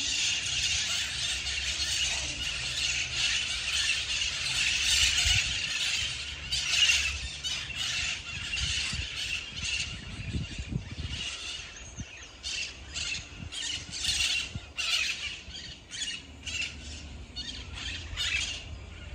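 Flock of birds calling: a dense, shrill chorus of squawks and chirps that thins after about nine seconds into separate short calls.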